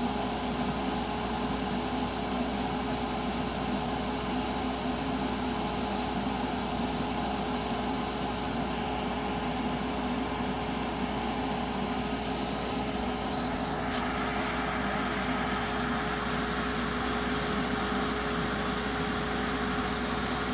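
SIP HG2300DV inverter welder running just after being switched on: its cooling fan gives a steady whir with a constant hum. About two-thirds of the way in there is a click, and a higher hiss joins the fan noise.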